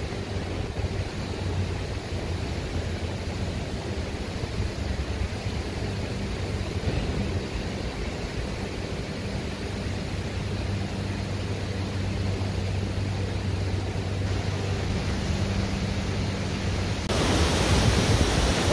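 Steady rush of fast-flowing river water, an even noise with a low rumble under it; it grows louder and brighter near the end.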